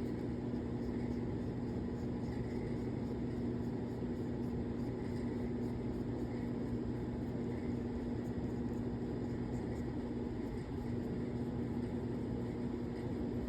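Steady low machine hum with a constant droning tone, unchanging throughout.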